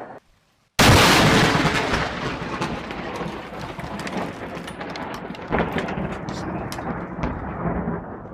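Close lightning strike: a sudden sharp thunderclap about a second in, then thunder rumbling and crackling as it slowly dies away, with a smaller swell past the middle.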